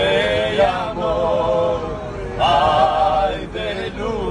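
Two men singing a Shkodran folk song together, holding long notes with a wavering pitch and breaking briefly between phrases.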